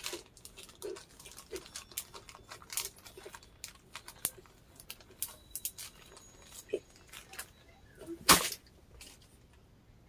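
Chewing a Twix bar close to the microphone: a run of small, irregular mouth clicks and crunches, with one louder sharp click a little past eight seconds.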